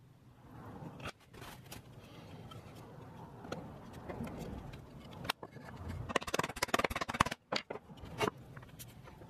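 Wooden boards knocking and clicking against each other as dovetailed box sides are handled and fitted together. There are scattered single knocks, and a rapid run of sharp knocks about six seconds in is the loudest.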